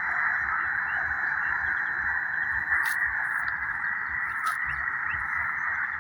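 Shortwave receiver hissing with steady band noise through its narrow single-sideband passband on the 20 m amateur band, with no station transmitting. Two short static crackles come about three and four and a half seconds in.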